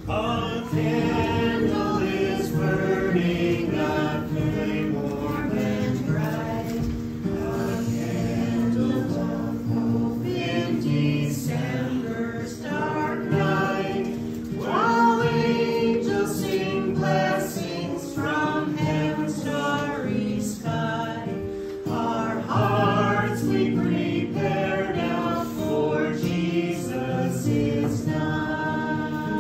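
Several voices singing a hymn together, accompanied by strummed acoustic guitar.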